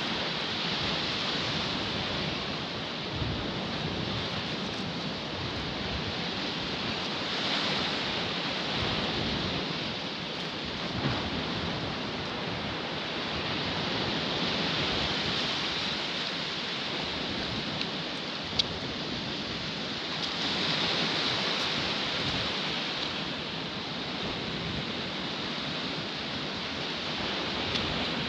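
Small surf breaking and washing up a sandy beach, a steady wash that swells about every six or seven seconds. Two brief sharp clicks stand out over it.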